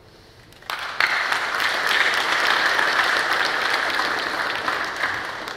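Audience applauding, starting abruptly about a second in and slowly dying away near the end.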